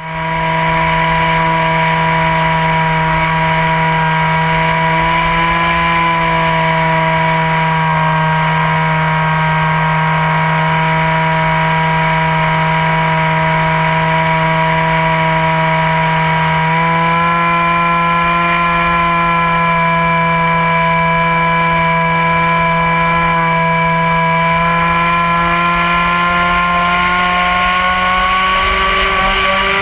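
Remote-control FPV plane's motor and propeller running at a steady hum, picked up by the onboard camera over air rush. The pitch steps up slightly about halfway through and climbs near the end.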